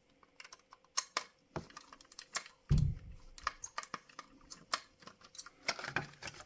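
Light, irregular clicks and taps of small die-cast model parts and a screwdriver being handled, with one duller knock about three seconds in.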